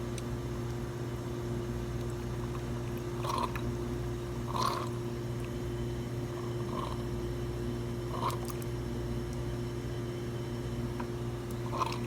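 Slayer espresso machine running water through a group head in pre-brew mode: a steady pump hum with a faint trickle of water into the cup, and a few small faint blips.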